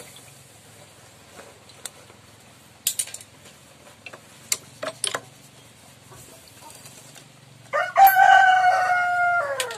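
A rooster crows once near the end, a single call of nearly two seconds whose pitch sinks slightly. Before it come a few sharp metallic clicks and taps from a wrench being worked on a motorcycle's clutch assembly.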